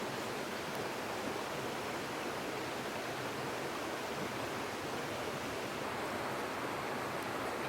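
Steady rush of flowing creek water, an even hiss-like noise with no breaks.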